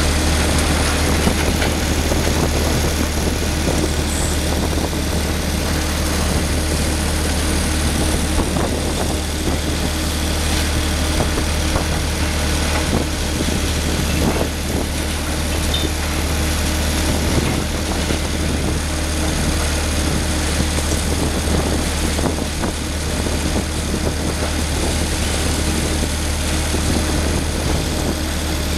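Liebherr 954 long-front demolition excavator's diesel engine running with a steady low drone, with irregular crunches and knocks of breaking masonry and debris.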